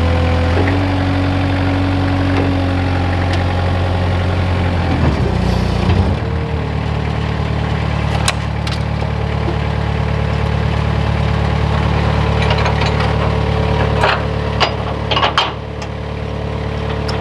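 Moffett truck-mounted forklift's engine running as it drives up to and is mounted onto the rear of a flatbed trailer. The engine note changes about six seconds in, then settles to an idle. A few sharp knocks come near the end.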